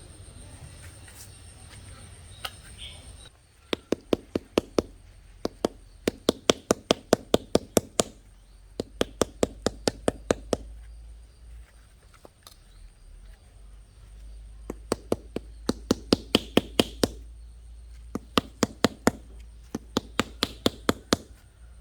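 Quick runs of hard knocks, about four strikes a second, broken by short pauses: a hand tool striking over and over during garden brickwork.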